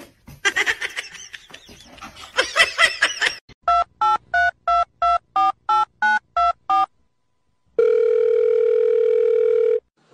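Telephone keypad tones: about eleven quick two-tone beeps dialling a number, then, after a short pause, a steady phone tone lasting about two seconds. Before the dialling come a few high, wavering calls.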